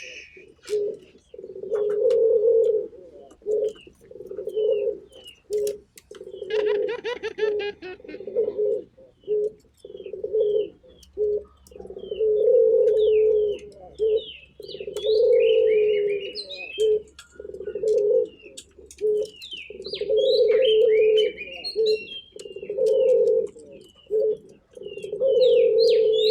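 Ringneck dove (burung puter) cooing persistently, one low coo after another every second or two. Small birds chirp with short high notes over it, thickest in the second half.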